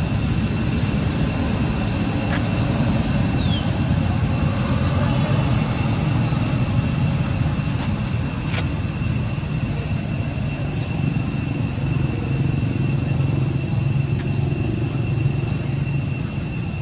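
Steady outdoor background of a constant low rumble, with a continuous high-pitched insect drone running over it. A faint short chirp falls in pitch about three and a half seconds in.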